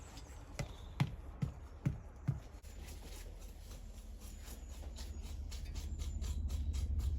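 Five sharp knocks about half a second apart, then fainter scattered clicks over a low rumble that grows louder near the end.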